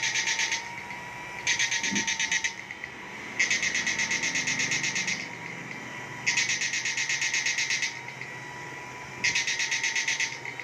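Home-built electro-fishing inverter running on test, its output buzzing in rapid pulses of about ten a second, in bursts of one to two seconds that switch on and off every few seconds as the test lamp on its output lights and goes dark. A faint steady whine runs underneath.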